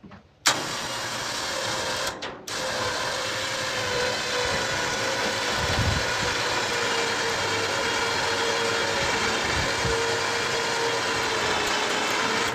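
A motor running with a steady whine, switched on abruptly about half a second in, stopping briefly around two seconds, then running evenly until it cuts off.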